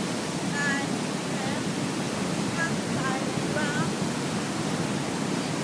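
Waterfall rushing steadily, a constant roar of falling water, with a few faint, brief high-pitched calls above it now and then.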